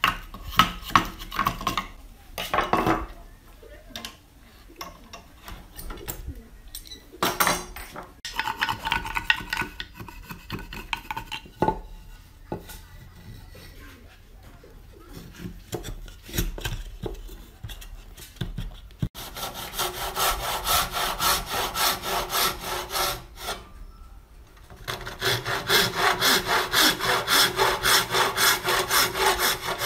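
A chisel knocks and scrapes in a notch in a wooden beam. Later a thin-bladed hand saw cuts through a small wooden block in quick, even back-and-forth strokes, in two runs with a short pause between.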